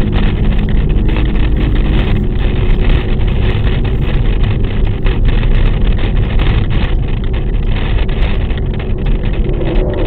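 Cabin noise inside a moving 2023 Suzuki Dezire manual: a steady deep road and wind rumble, with the engine barely audible. Frequent small rattling knocks come from a phone camera and a rosary knocking against the dashboard.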